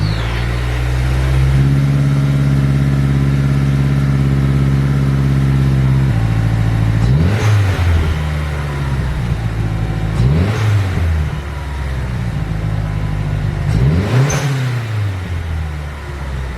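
Mazdaspeed 3's turbocharged 2.3-litre four-cylinder engine just after starting, running at a steady fast idle that drops to a lower idle about six seconds in. The throttle is then blipped three times, each rev rising and falling back to idle.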